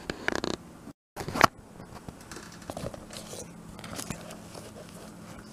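Handling noise from binoculars and their rubber lens caps: short scuffs and clicks, the loudest about a second and a half in, just after a brief gap of silence, then faint scattered clicks and rustles.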